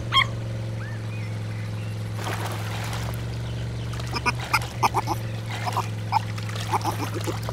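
Cartoon sound effects: a series of short, squeaky, quack-like animal calls from about four seconds in, over a steady low motor hum from the boat.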